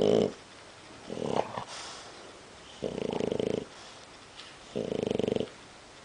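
A half-asleep pet snoring: three short rasping snores about two seconds apart, after the end of another right at the start.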